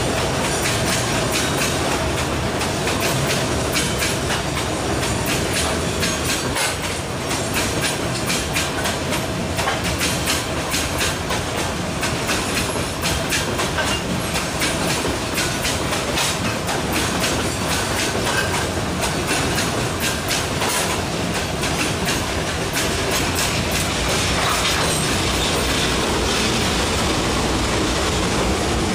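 Loaded freight hopper wagons rolling steadily past close by, their steel wheels clicking over the rail joints in a continuous clickety-clack.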